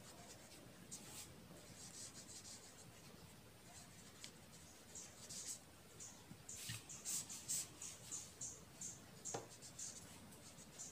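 Pen writing on paper: a faint run of short scratching strokes, busier and louder from about halfway through.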